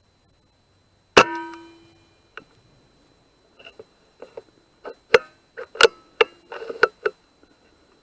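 A single PCP air rifle shot, a sharp crack with a short metallic ring after it, about a second in. Then, after a pause, a run of sharp metallic clicks and clacks over a few seconds as the rifle's action is cycled to load the next pellet.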